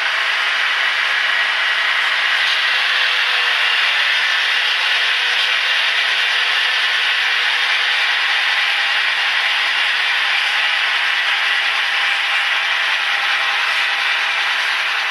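Model locomotive's Tsunami sound decoder playing a steady rushing, hissing locomotive sound through its small speaker.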